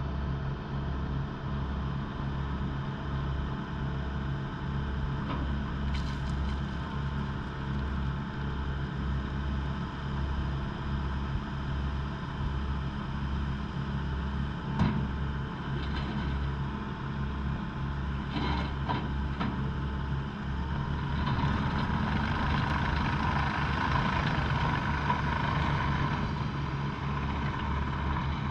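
2013 Bobcat T770 skid steer's diesel engine idling steadily, with a few short knocks and clanks. About three quarters of the way through it grows louder with a higher-pitched whine over the engine.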